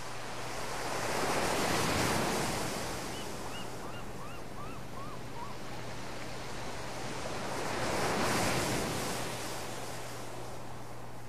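Ocean waves washing ashore, swelling twice, about two seconds in and again near the end, with a quick run of six short high chirps a few seconds in and a faint steady low hum underneath.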